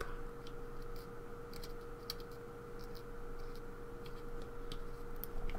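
Scattered light clicks and taps of small metal lock parts and tools being handled while a pin-tumbler lock is taken apart, a few a second, over a faint steady hum.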